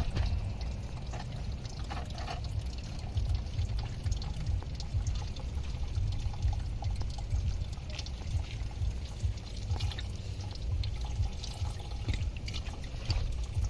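Engine coolant draining from a 2003 Toyota Camry's opened radiator drain petcock, pouring and splashing in a steady stream, over a steady low rumble.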